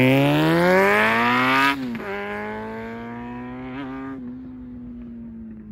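Kawasaki Zephyr χ's inline-four with an RPM aftermarket exhaust revving hard through a gear. About two seconds in, the pitch dips suddenly at an upshift, and the engine then holds a steadier note that grows fainter.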